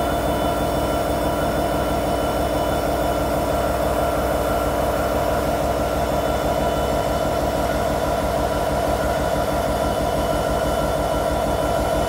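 Canadian Pacific SD70ACu diesel-electric locomotive idling, a steady engine drone with several held tones over a low rumble.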